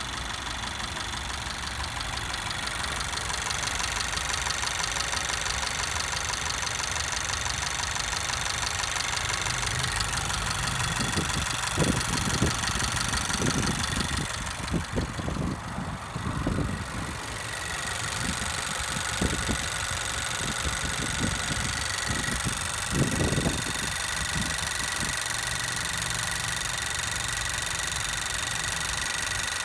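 2017 Honda Civic Si 1.5-litre turbocharged direct-injection engine running with a loud ticking, which the owner suspects is something loose rather than normal injector noise. About halfway through it changes to a second, new Civic Si engine running for comparison.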